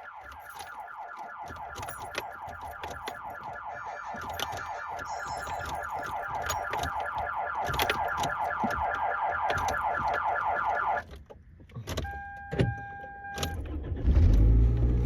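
Anti-theft car alarm of a 2000 Toyota Corolla sounding a rapid, repeating warble. It was set off by getting into the car, grows louder, then cuts off about eleven seconds in. About a second later a steady beep sounds for about a second and a half.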